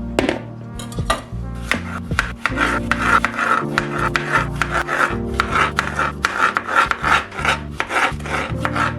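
Knife cutting on a wooden cutting board in quick, repeated strokes, over soft background music.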